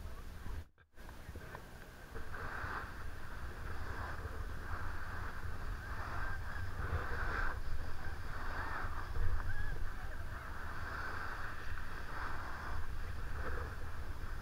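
Snowboard sliding and carving over snow, a continuous scraping hiss that swells and eases with the turns, with wind rumbling on the camera microphone. It starts after a brief dropout about a second in.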